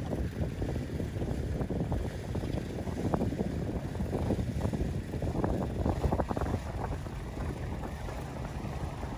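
Wind buffeting the microphone in uneven gusts over a steady low rumble of a small boat's motor on the water.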